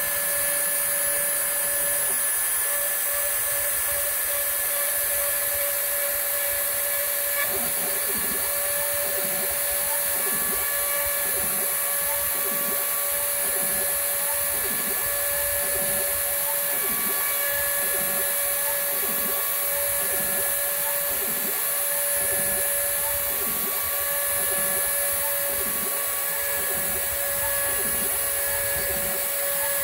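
Old Dremel rotary tool running steadily at high speed as the spindle of a home-built CNC mill, a high-pitched whine. From about seven seconds in, a lower sound rises and falls about once a second as the mill makes back-and-forth facing passes.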